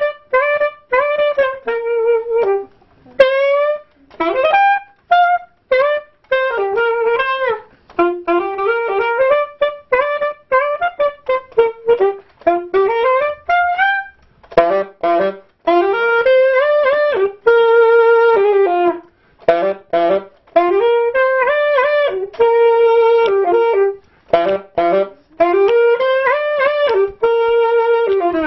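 Solo saxophone playing a familiar melody live and unaccompanied, in phrases with pitch slides and short breaks between them.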